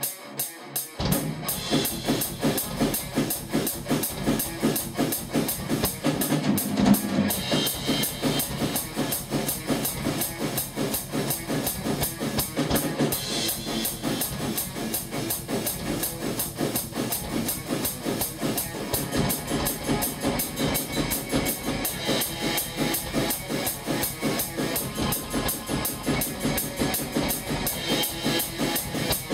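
Drum kit played in a fast, steady thrash metal beat, with bass drum, snare and cymbals. The full beat comes in about a second in and keeps an even, driving pulse.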